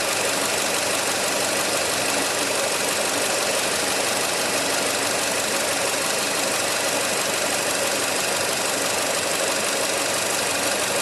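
Nissan MR20DE 2.0-litre four-cylinder petrol engine running at a steady speed with a fast, even mechanical clatter: the abnormal extraneous noise the owner is trying to track down.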